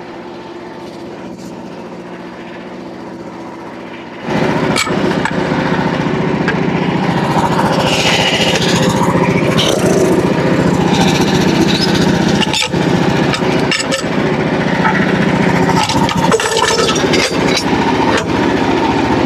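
Gasoline engine of a Frontier OS27 portable band sawmill running at a steady low speed, then throttling up suddenly about four seconds in. The band blade then runs on at full speed, cutting through the white oak log.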